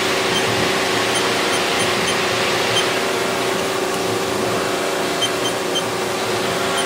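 Haas GT-20 CNC lathe running through a program cycle with its spindle at about 1,000 RPM: a steady mechanical hum with a steady tone, and short high chirps now and then.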